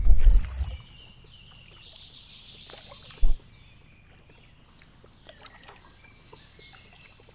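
Kayak being paddled: faint water swishing and dripping from the paddle strokes, with a low rumble in the first second and a single sharp thump about three seconds in.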